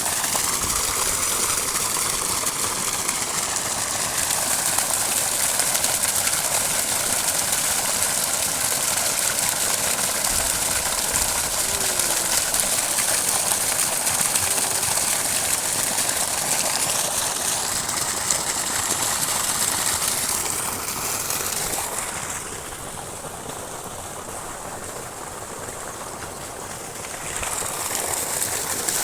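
Water rushing steadily from the outlet of a motor-driven water pump. The rush drops for about five seconds near the end, then rises again.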